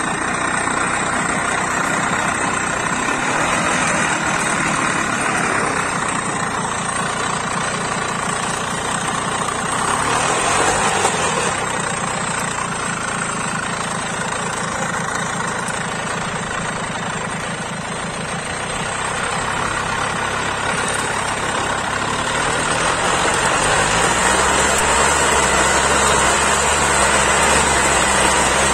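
A 35-year-old Benassi motor hoe's Minarelli engine running steadily as the tiller hoes soil among bean plants. The engine note wavers briefly about ten seconds in, then settles into a slightly louder, steady note over the last few seconds.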